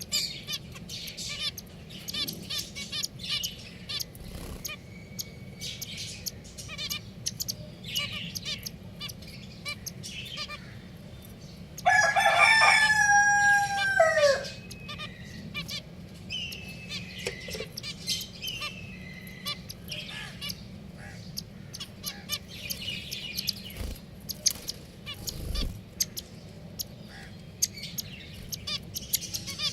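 Pet finches chirping in short, high calls throughout, with a rooster crowing once, loudly, about twelve seconds in; the crow lasts about two and a half seconds and drops in pitch at the end.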